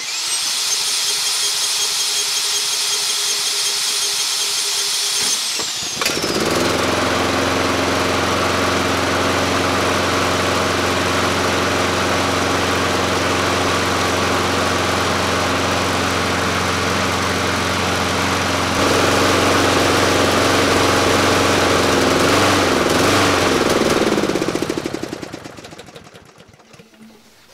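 A cordless drill whines for about five seconds, spinning over a Briggs & Stratton single-cylinder lawnmower engine, which then fires and runs steadily on five-year-old stale gasoline. It gets louder about two-thirds of the way through, then is shut off near the end, sputtering and winding down.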